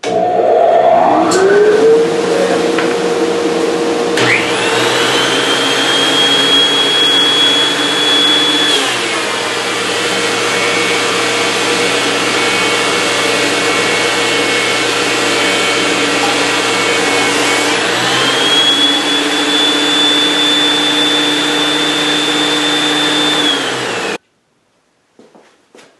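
A dust collector motor spins up, rising in pitch. About four seconds in, the Oliver 1044 benchtop planer starts with a high, rising whine. While a board is fed through, the planer's whine drops lower for about nine seconds, then climbs back to free-running pitch. All sound cuts off abruptly shortly before the end.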